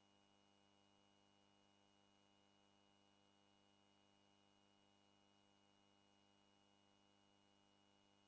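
Near silence: a faint, steady electrical hum with a thin hiss, unchanging throughout.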